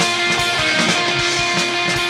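Live band playing an instrumental passage on electric guitar, bass guitar and drum kit, over a steady drum beat.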